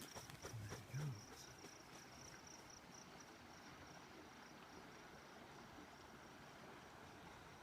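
Faint insect chirping: a thin, high trill broken into rapid pulses that fades out after about three seconds. A few soft knocks and thumps come in the first second.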